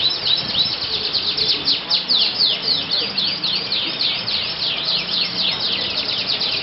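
Canaries singing in a dense, unbroken stream of rapid downward-sweeping chirps and trills, several birds overlapping in a contest chorus.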